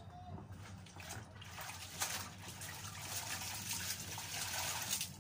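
Water splashing and trickling back into a plastic basin as a wet garment is wrung out by hand, growing louder from about two seconds in.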